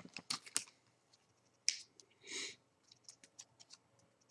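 Trading cards handled by hand: faint clicks and flicks of card edges as a pack is leafed through, with one sharper click and a brief swish of a card sliding about two seconds in.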